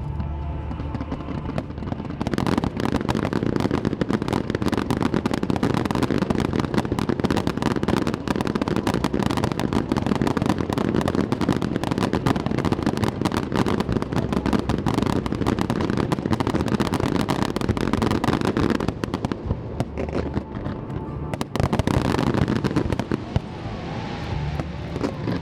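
Aerial fireworks display: a dense, continuous crackle of many small bursts, with music underneath. The crackling starts about two seconds in, thins briefly after about twenty seconds, then builds again.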